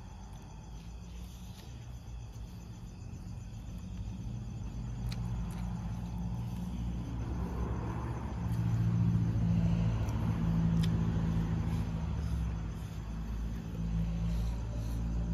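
A motor vehicle's engine rumbling, growing louder from about four seconds in and staying loud to the end, with crickets chirping faintly underneath.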